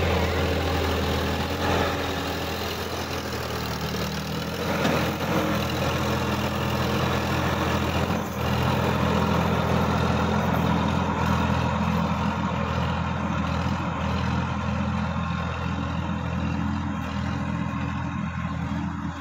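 Sonalika DI-50 RX tractor's diesel engine running under load as it pulls a rotary tiller through the soil, a steady low drone.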